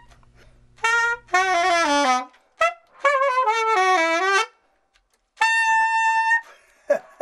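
Alto saxophone played solo. It plays a short note, a falling run of notes, a longer slurred phrase, and then one long held note, with short pauses between the phrases.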